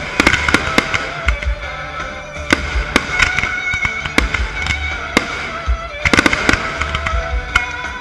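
Fireworks bursting: many sharp bangs and crackles, several a second, with a dense flurry about six seconds in, over loud music with sustained tones and a bass line.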